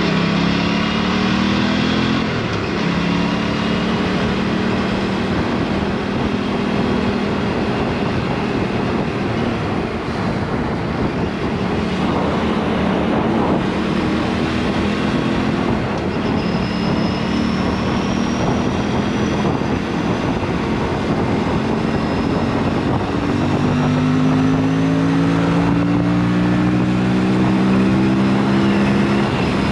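Aprilia superbike engine through an exhaust with the dB killer removed, running hard while riding, its pitch climbing in several pulls, over a steady rush of wind on the action camera's microphone.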